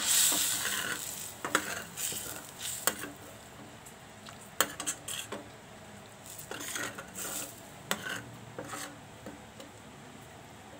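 Metal spatula scraping and clinking against a thick stainless-steel frying pan while stirring a thin yellow spice sauce, in uneven strokes that are loudest at first and die away near the end.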